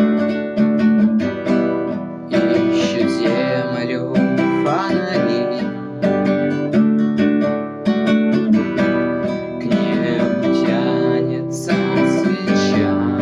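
Acoustic guitar playing an instrumental passage of strummed chords, with a melody line that bends in pitch a few times.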